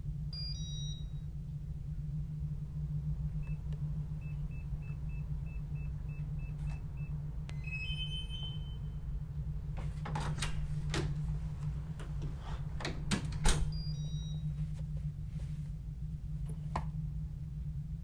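Digital door lock on an apartment door: a wake-up beep, then a run of about ten short keypad beeps as a code is punched in, then a short unlock jingle. Several clicks and clunks of the bolt and door follow, with another two-tone beep from the lock right after the loudest clunk. A low steady hum runs underneath.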